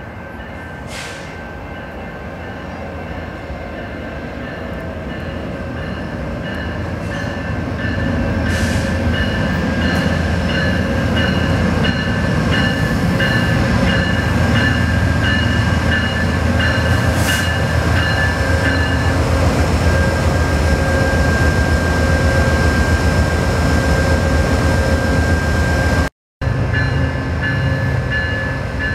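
A GE P42DC diesel locomotive's 16-cylinder engine and the rumble of its passenger train, growing louder over the first several seconds as it approaches, then steady as it rolls into the station. High ringing tones sound over it, and the sound drops out briefly near the end.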